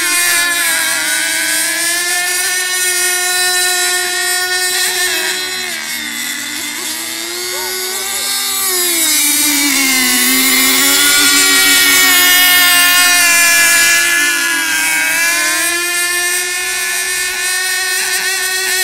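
Radio-controlled racing boats running at speed across the water: a high-pitched motor whine. Its pitch dips for a few seconds near the middle, where two tones are heard at once, then climbs back.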